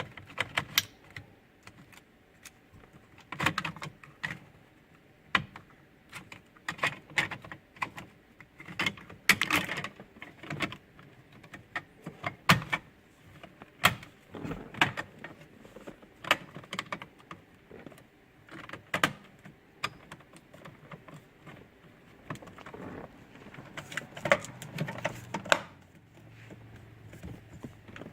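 Plastic steering column covers being pressed and snapped into place by hand: irregular sharp plastic clicks and knocks, sometimes several in quick succession, with short pauses between.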